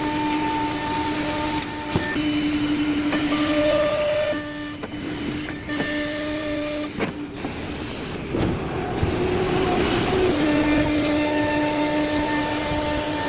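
Automated CNC woodworking machine running: a steady motor hum with a higher whine. The sound changes abruptly a few times, with brief high-pitched whines and a short rising and falling sweep about two-thirds of the way through.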